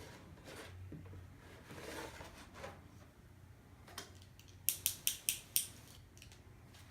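Hands handling a vinyl record and its packaging: soft rustling and light taps, then a quick run of about five sharp clicks a little under five seconds in.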